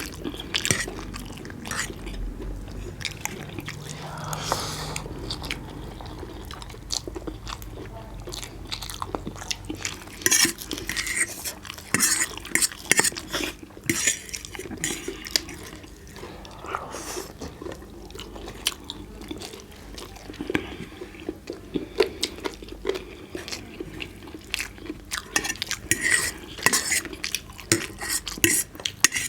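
Close-miked eating of roast chicken and noodles: chewing and biting, with frequent short clinks and clicks of dishes throughout.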